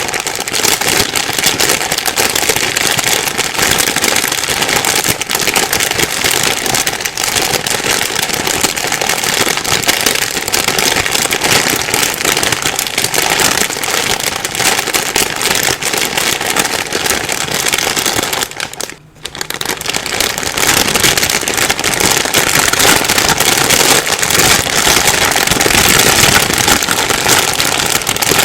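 Plastic bag being crumpled and rustled without stopping, a dense crackling, with a brief pause about two-thirds of the way through.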